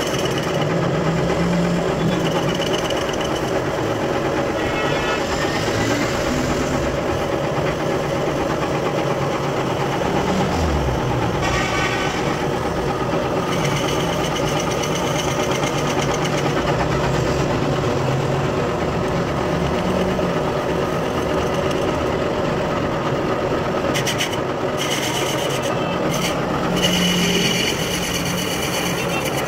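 Metal lathe running with a cutting tool skimming the inner braking surface of a motorcycle wheel's brake drum: a steady machine hum with the scrape of the cut.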